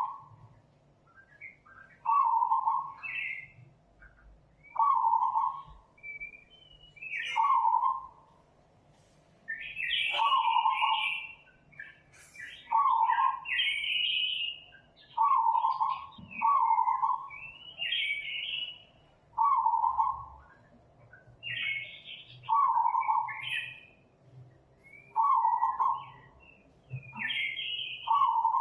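Birds calling: a short low hoot-like call repeating evenly about every two and a half seconds, with higher chirping from other birds in between.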